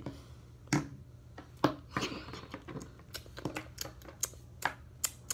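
Plastic toy animal figurines tapped and set down on a hard surface by hand: a string of light, irregular clicks and clacks.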